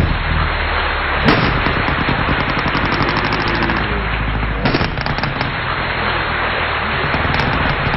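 Chevrolet Cruze's exhaust firing a rapid, unbroken string of pops and bangs from an aftermarket flame kit, over a low engine rumble, with two sharper bangs about a second in and near the middle.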